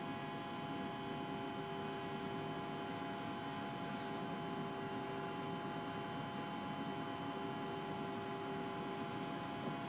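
Steady hum in a stationary train's driver's cab: several constant tones over a low, even noise, with no change in pitch or level.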